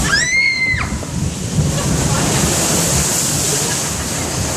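Rushing, churning water of a log flume channel running steadily under the boat. A short high-pitched squeal at the very start.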